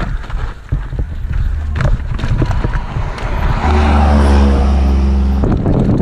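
Mountain bike rattling and clattering over a rough descent, with sharp knocks from the bike and wind noise on the microphone; about halfway through, a steady low hum takes over for about two seconds, then cuts off.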